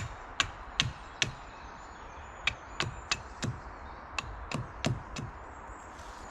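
Wood being chopped with an axe: sharp blade strikes on wood in quick runs of three or four, about three a second, with short pauses between the runs.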